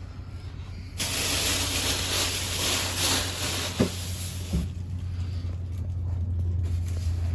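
Packaging being handled and pulled during an unboxing. It makes a rush of rustling, scraping noise for about four seconds, with two light knocks near the end of it, then gives way to a low steady rumble.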